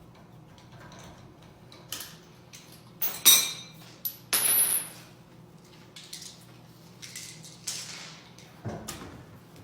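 Metal tools clanking and knocking: a few sharp metallic strikes, the loudest about three seconds in and ringing briefly, with a short scraping rattle just after.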